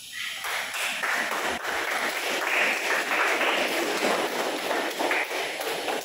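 A small group applauding with hand clapping, starting just after the opening and dying away near the end.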